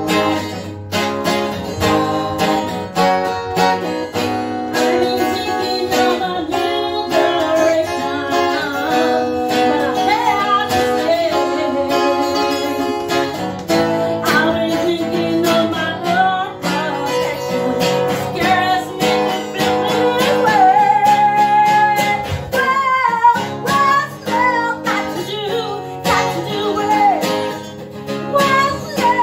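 Music: strummed acoustic guitar accompanying a singing voice.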